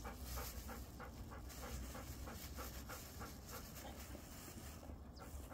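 Dog panting faintly in a quick, even rhythm of about four breaths a second while it holds a sit-stay, waiting to be given food.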